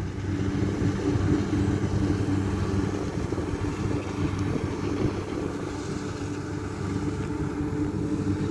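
Kubota DC60 combine harvester's diesel engine running steadily while it cuts rice, a constant low hum.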